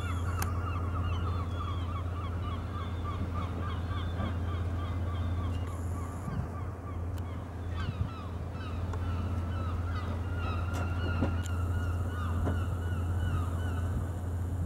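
Gulls calling in long runs of short, quick calls, over a steady low hum.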